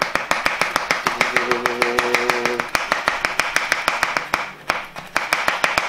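Fast, even light tapping, about nine taps a second, on a plastic powder-funnel case fitted upside down on a plastic water bottle's neck, knocking supplement powder down into the water.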